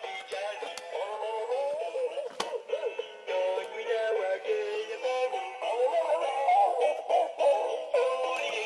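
Music with a sung melody, thin and tinny with no bass, as from a small speaker, with a few sharp clicks over it.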